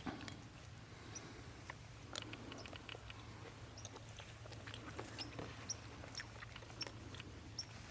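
Faint chewing and small scattered clicks of people eating cooked oyster mushrooms, over a low steady hum.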